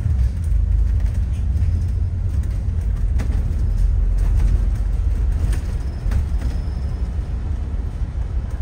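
Steady low rumble of a city bus's engine and road noise heard from inside the cabin, with a few faint clicks or rattles.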